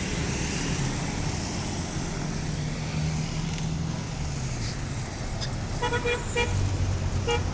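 A bus engine running with a low steady hum, then a quick cluster of short horn toots on one pitch about six seconds in and one more toot near the end.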